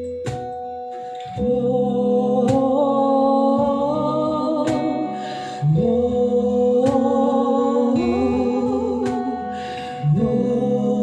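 Music without lyrics: a song's closing bars, sustained chords changing about every four seconds with a sharp beat roughly every two seconds.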